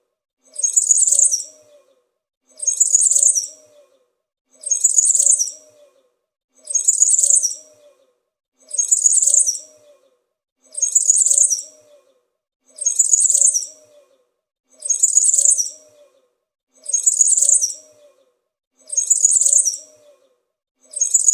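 Small forest songbird chirping a short, high-pitched warble, the same phrase repeating about every two seconds.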